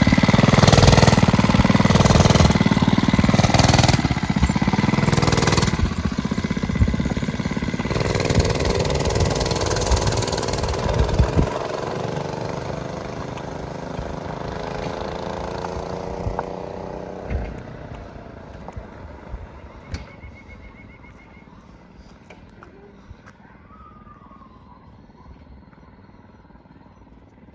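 Mini bike's small single-cylinder four-stroke engine revving in several quick blips, then running as the bike pulls away. The engine note drops in pitch and fades until it is faint near the end.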